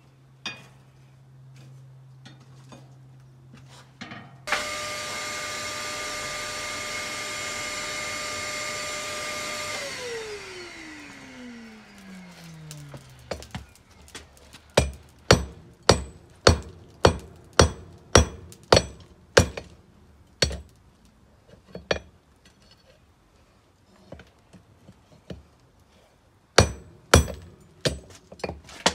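A small electric motor runs with a steady whine for about five seconds, then spins down, its pitch falling over the next few seconds. Then a hammer strikes the 66 lb cast steel anvil, about a dozen blows at roughly two a second followed by a few scattered blows, each dying away quickly.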